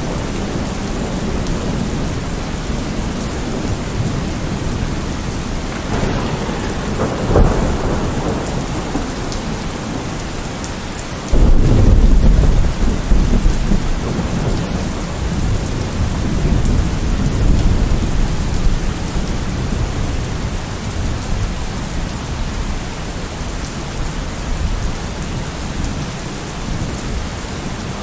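Thunderstorm: steady heavy rain with rolling thunder. A rumble swells about six seconds in, and a sudden loud thunderclap about eleven seconds in rolls on as deep rumbling for several seconds.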